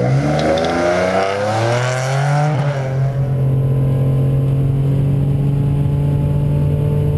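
Turbocharged 2007 Ford Mustang's 4.0 L V6 accelerating hard down a drag strip, its engine note climbing for about two and a half seconds. The sound then switches to a steady engine drone at constant revs, heard from on the car itself.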